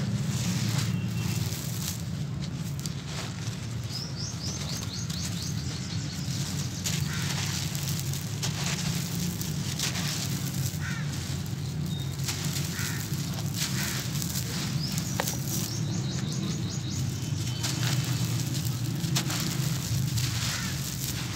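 Hands crumbling and scooping a dry, gritty sand-and-cement mix: steady crunching and trickling of grit falling back onto the pile, with scattered small crackles.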